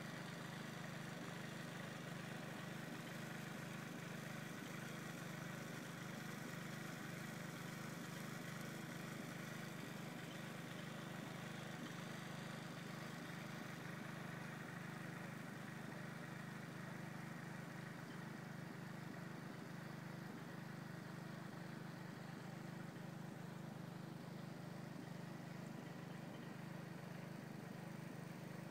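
A pump's motor running steadily while it fills the pond, a constant low drone with no change in speed.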